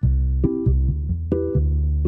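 A Casio CTK-800 electronic keyboard playing a preset sound: a run of notes struck in quick succession over a deep sustained bass line, starting suddenly.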